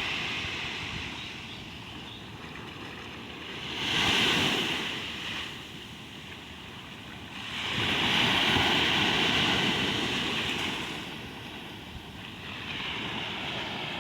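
Ocean waves breaking and washing in, a steady hiss of surf that swells loudly twice: briefly about four seconds in, and longer from about eight seconds.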